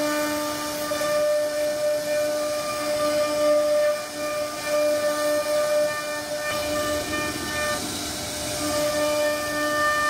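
CNC router spindle running at a steady high-pitched whine as its bit carves a relief pattern into a wooden door panel, with the hiss of the cutter chipping the wood. About two-thirds of the way in, the whine fades for a couple of seconds while the cutting noise grows, then returns.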